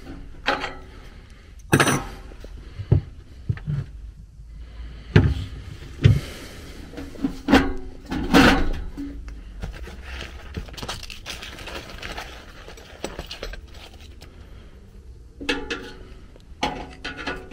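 Hands working on a sheet-metal HVAC blower housing and its blower wheel: irregular knocks, clanks and rubbing of metal parts, with a few louder thuds about 2, 5 and 8 seconds in.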